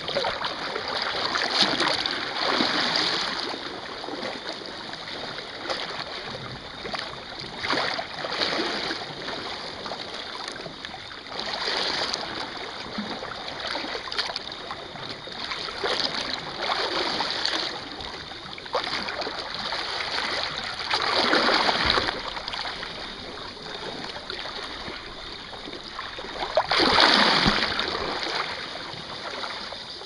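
Small sea waves washing over and splashing against a low rock ledge. A surge of rushing, splashing water comes every four or five seconds, and the biggest swells come about two-thirds of the way through and near the end.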